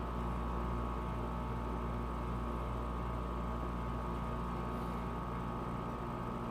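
Steady background hum: a constant low drone with a few steady higher tones, unchanging throughout.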